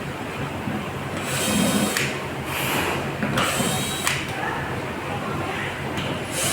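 Power screwdriver running in short bursts of under a second, twice, backing screws out of a dehumidifier's casing as it is taken apart.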